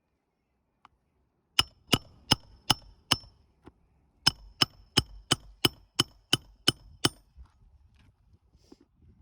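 Hammer striking metal, each blow ringing: five quick blows, a short pause, then nine more at about three a second.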